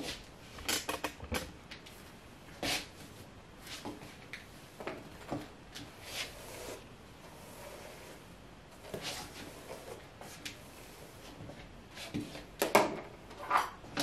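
Soft rustling of long hair being smoothed and handled by hand, with scattered light clicks and knocks; the loudest cluster of clicks and knocks comes near the end.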